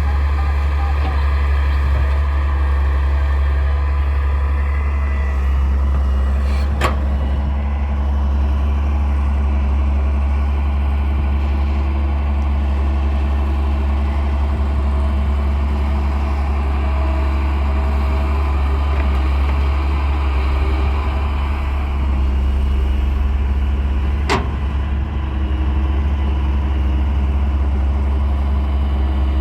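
Heavy diesel earthmoving engine running steadily with a deep, even drone. Two short, sharp knocks cut through it, one about a quarter of the way in and one late on.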